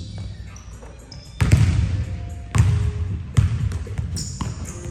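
Basketball bouncing on a hardwood gym floor, four dribbles roughly a second apart beginning just over a second in. Each bounce has a deep thud that echoes in the gym.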